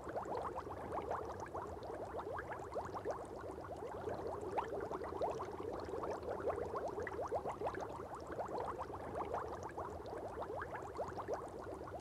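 Aquarium air bubbling steadily: a dense, fast stream of small bubbles ticking and popping.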